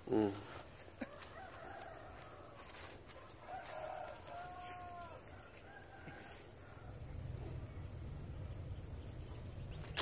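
A rooster crowing, a drawn-out arching call heard most clearly between about three and five seconds in. A low rumble comes in about seven seconds in.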